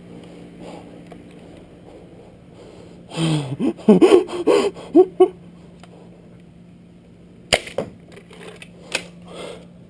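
A short burst of voice, like yelps or laughter, then a single sharp snap about seven and a half seconds in, likely a Nerf foam-dart blaster firing, followed by a few lighter clicks of handling.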